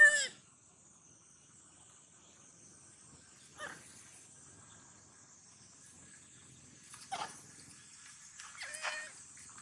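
Baby monkey crying out in short pitched calls: a loud one at the very start, fainter ones about three and a half and seven seconds in, and a quick cluster near the end, the distress calls of a baby monkey looking for its mother. A steady high-pitched hum sits underneath.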